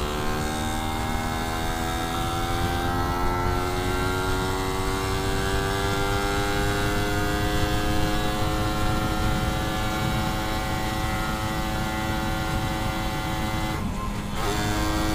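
Suzuki Satria 120's single-cylinder two-stroke engine pulling under load, its note climbing slowly and steadily, then cutting out briefly near the end and coming back at a lower pitch, as at a gear change. Wind rumbles on the microphone. The slow climb is the bike's weak, gasping pull on an uphill ("ngempos, tenaga loyo").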